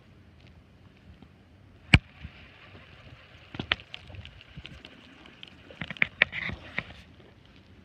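Handling noise of a spinning rod and reel held close to the microphone: one sharp knock about two seconds in, then scattered clicks and taps, bunched together near the end.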